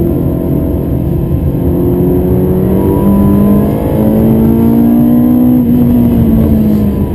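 Ferrari 360 Modena's 3.6-litre V8, heard from inside the cabin, pulling hard under acceleration with its pitch climbing steadily, then dropping in the last second or so.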